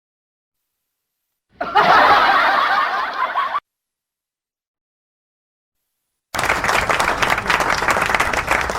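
Stock sound effects with dead silence between them: about one and a half seconds in, a two-second burst of a group laughing, then about six seconds in, a crowd applauding with dense clapping.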